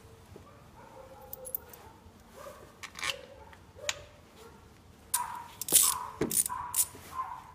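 Steel valve-cover bolts clinking in the hand and being set into the cylinder-head cover, then a socket wrench on an extension turning them. The sound is a scatter of sharp metallic clicks and scrapes, sparse at first and louder and closer together in the last couple of seconds.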